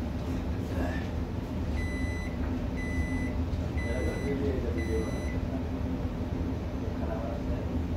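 An electronic appliance beeper going off four times, one high, even beep about every second, over a steady low hum.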